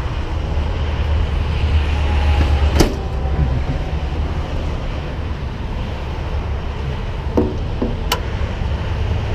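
Steady low rumble of idling vehicle engines and freeway traffic, heaviest in the first few seconds, with two sharp clicks, about three seconds in and again about eight seconds in.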